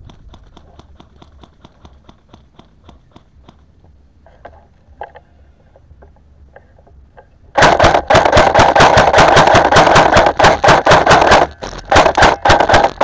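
Airsoft electric gun firing full-auto right at the microphone: a long, loud, rapid burst of clicks over the whir of the gearbox starts about two-thirds of the way in, then stops briefly and gives way to shorter bursts near the end. Before the firing there is only faint, regular ticking.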